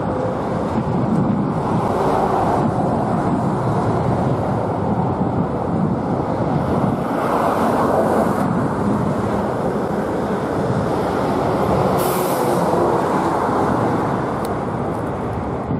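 Steady noise of road traffic: a constant, even rumble with no breaks.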